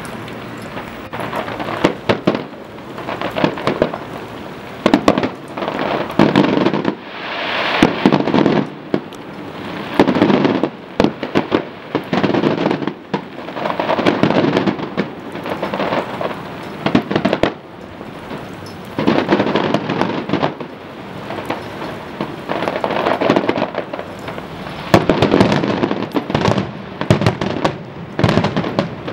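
Aerial fireworks show: a continuous barrage of shell bursts and bangs, coming in dense volleys a few seconds apart, with crackling in between.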